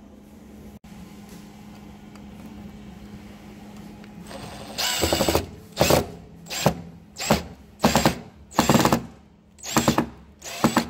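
Power drill driving a wood screw into cured epoxy molding clay filler set in wood, run in about eight short bursts starting about five seconds in. Before the bursts there is only a faint steady low hum.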